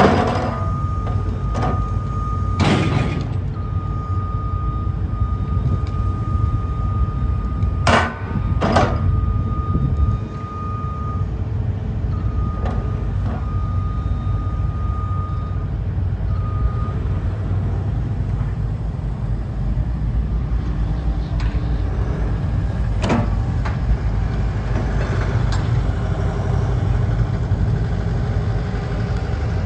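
Kobelco ED160-7 Blade Runner excavator's diesel engine running steadily while the machine works and swings, with a thin steady high tone through the first half or so and several sharp knocks at intervals.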